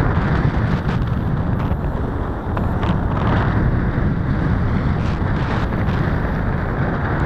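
Wind buffeting a camera microphone, a steady, loud rumbling rush that never lets up.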